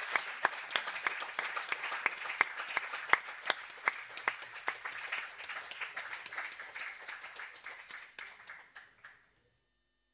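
Audience applauding: many people clapping together, the clapping thinning out and stopping about nine seconds in.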